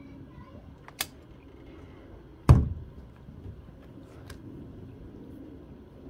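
A sharp click about a second in, then a single heavy thump as the convertible top's frame is pulled forward and comes down onto the windshield frame, followed by a few faint clicks.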